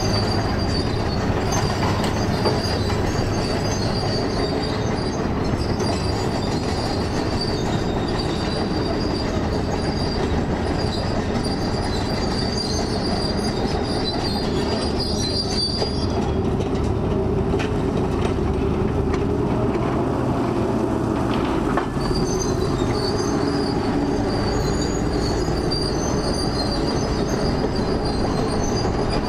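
Demolition machinery working scrap steel: a diesel excavator running while its grab handles and drags metal, with a steady rumble and a high metal-on-metal squeal that drops out for a few seconds midway.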